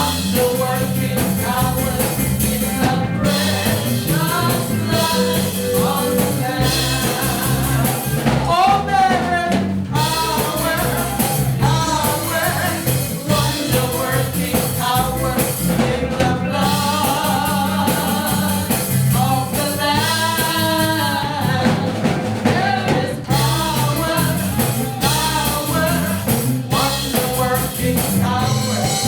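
Live contemporary gospel worship music: singing with a band, drums keeping a steady beat.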